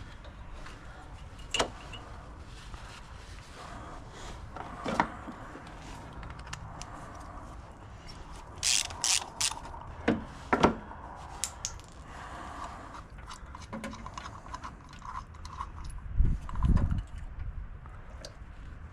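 Metal tools and small carburetor parts clicking and clinking as the snowblower's carburetor is handled and taken apart, in scattered strokes with a quick run of sharper clinks about nine seconds in. A low thump comes near the end.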